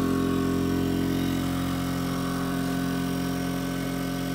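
Portable inverter generator engine running steadily at raised speed under the load of a microwave oven it is powering, a constant hum with no change in pitch.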